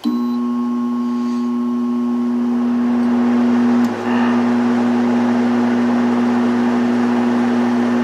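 A Frigidaire 5000 BTU window air conditioner switching on. A steady hum starts at once and the fan's rush of air builds over the first few seconds, then the unit runs steadily, with a brief dip and a click about four seconds in.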